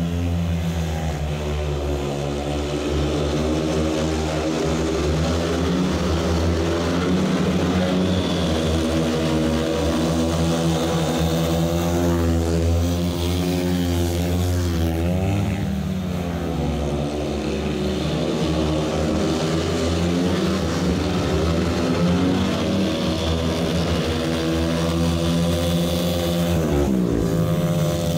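Speedway bikes' 500 cc single-cylinder methanol engines racing round the track at full throttle, the engine note rising and falling in pitch several times.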